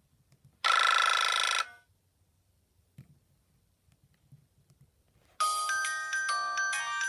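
Nokia 2630 ringtones played through a Sony Ericsson W595's loudspeaker. A short tone rings for about a second, then there is a pause with a faint click. Near the end a new melody of quick chiming notes begins.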